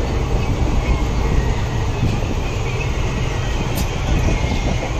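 Steady rumble and rattle of an Indian Railways passenger coach running along the track, heard from inside the coach, with one short sharp click nearly four seconds in.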